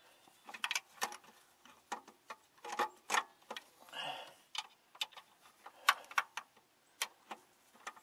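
Irregular sharp metallic clicks and clinks of hand tools working on the underside of a car while a starter is being fitted.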